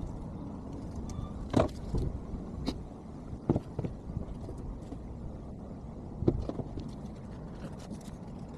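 A handful of sharp knocks and clanks at uneven intervals over a steady low rumble, the loudest a little over a second in, about three and a half seconds in, and past six seconds.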